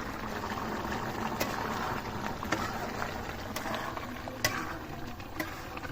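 Chicken curry simmering in a pot as the meat finishes cooking: a steady bubbling hiss, with sharp clicks about once a second.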